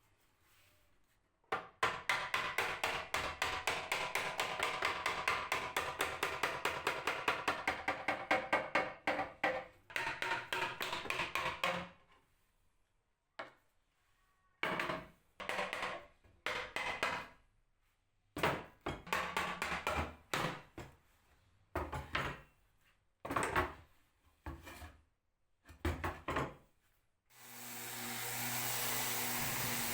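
A hand tool worked back and forth on wood in rapid, even strokes, about five a second, then in shorter separate passes. Near the end a power tool starts and runs steadily with a low hum.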